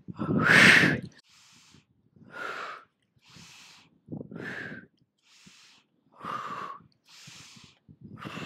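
A woman breathing hard in time with crunches: a strong exhale about every two seconds, each followed by a quieter inhale.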